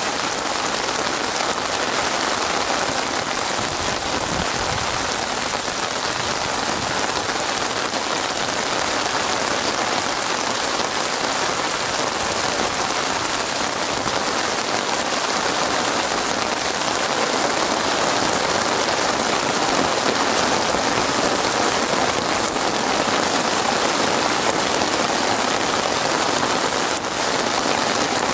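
Heavy rain falling steadily on a wet surface, a dense, even hiss of countless drops with no let-up.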